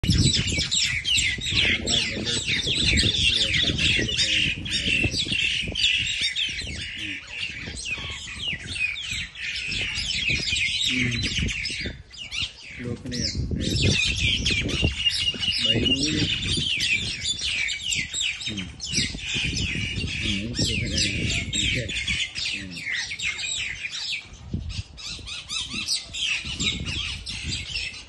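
Common mynas squawking and screeching harshly and almost without pause as they fight, with a brief lull about twelve seconds in.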